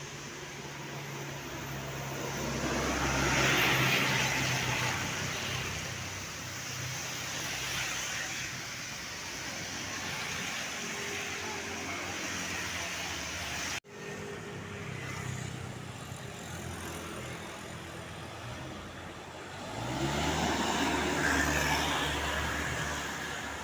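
Road traffic with large vehicles: an engine runs low and steady while a vehicle passes about three to four seconds in. Near the end an engine speeds up with a rising pitch as a vehicle pulls away. The sound cuts out for an instant partway through.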